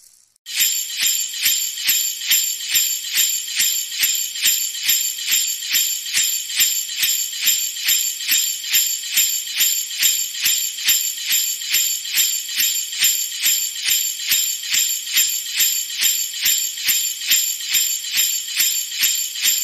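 Sleigh bells shaken in a steady, even rhythm of about two shakes a second, starting about half a second in.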